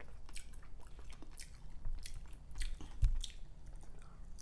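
Close-up chewing and wet mouth clicks from someone eating boiled duck egg (balut), with a single low thump about three seconds in.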